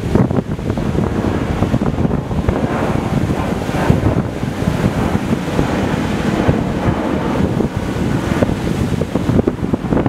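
Rough sea surf breaking and washing over a rocky shore, with wind buffeting the microphone in a low rumble. A louder wash of surf comes about four seconds in.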